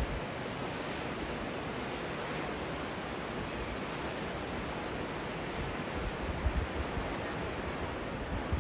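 Indus River in flood: a steady rush of fast, muddy floodwater. Brief low gusts of wind hit the microphone about six seconds in.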